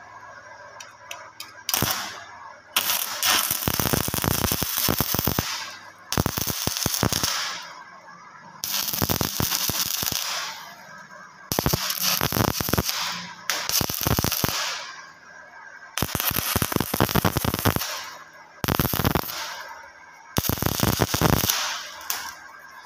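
Manual stick (arc) welding: the electrode arc crackling and spitting in about eight bursts of one to three seconds, each broken off by a short pause, as a steel hinge is tacked and welded onto a mild-steel door frame.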